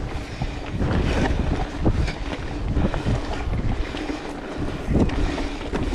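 Wind buffeting the microphone of an action camera on a mountain bike ridden along a dirt singletrack, over the rumble of knobby tyres on the dirt. Frequent short knocks and rattles come from the bike jolting over bumps.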